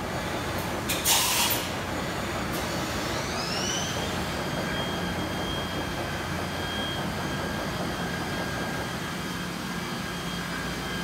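Mazak FH-4800 horizontal machining center running with a steady machine hum. A short burst of hiss comes about a second in. Then the spindle whine rises in pitch and holds steady for a few seconds.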